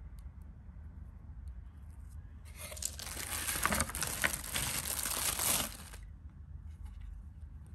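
Thin clear plastic bag crinkling and rustling as it is pulled open and a charger is taken out of it. It starts about two and a half seconds in and stops abruptly around six seconds.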